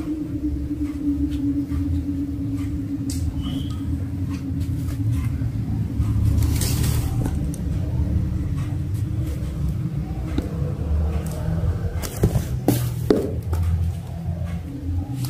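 A steady low rumble and hum, with a few sharp knocks about twelve to thirteen seconds in as kittens play with toys and a cardboard box on a tiled floor.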